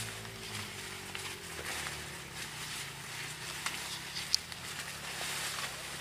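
Dry corn leaves and stalks rustling and crackling as someone pushes through and works among the corn plants, with one sharp click a little over four seconds in. A low steady hum runs underneath.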